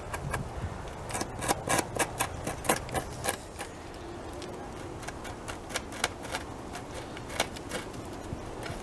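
Beaver gnawing on a felled tree trunk: a quick run of sharp, crunching clicks as its teeth bite into the wood. The clicks come thick and fast for the first three and a half seconds, then sparser and fainter.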